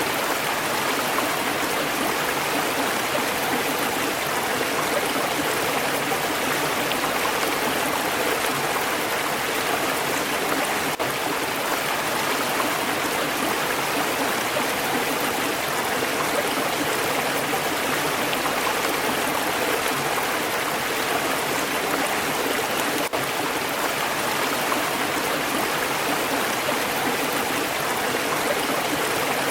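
Stream water flowing steadily over rocks, a continuous even rushing and gurgling.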